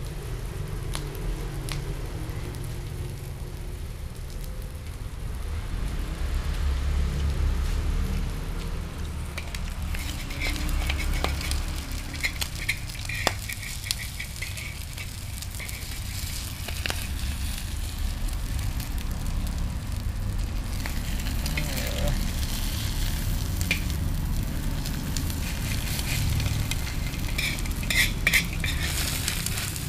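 Egg and onion sizzling in oil in a large aluminium wok, getting louder partway through, with a metal spoon scraping and clicking against the pan as the egg is turned. A steady low rumble runs underneath.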